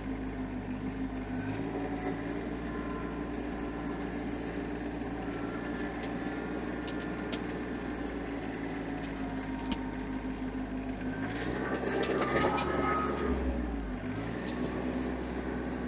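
Tractor engine running steadily. Its pitch and loudness rise and fall briefly about three-quarters of the way through, as under load or throttle change, with a few light knocks.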